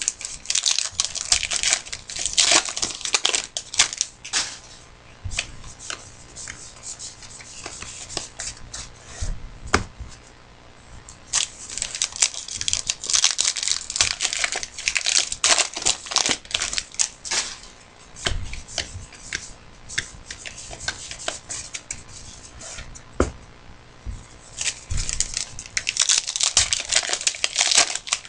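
Trading card pack wrappers tearing and crinkling in several bouts, with short clicks and rustles of cards being handled in between.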